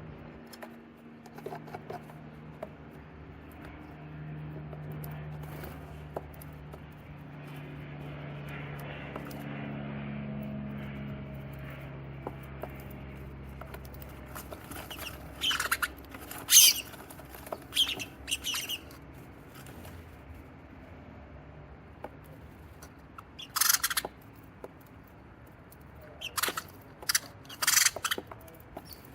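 Sparrows giving short, sharp chirps in a few quick clusters, loudest about halfway through and again near the end. Under them runs a low steady drone that swells and fades over the first half.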